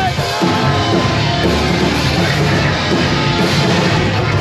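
Post-hardcore rock band playing live at full volume: distorted electric guitars and a drum kit, with a sung vocal line over them.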